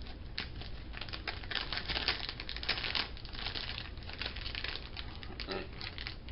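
Plastic candy bag crinkling as it is handled, a dense run of irregular crackles.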